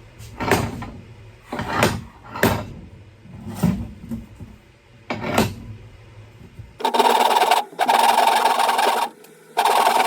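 Saw cutting the wedge kerf into a wooden axe handle. A few separate strokes come first; then, about seven seconds in, continuous fast sawing starts, pausing briefly twice.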